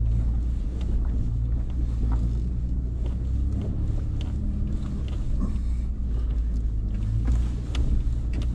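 Nissan Frontier Pro-4X's V6 engine running steadily at low speed as the truck crawls a rough dirt track in four-wheel-drive low, with scattered light clicks and knocks over the bumps.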